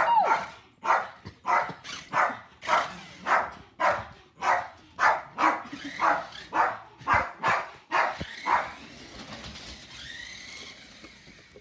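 Dog barking repeatedly at a steady pace of about two barks a second, stopping about eight seconds in; a fainter wavering tone follows.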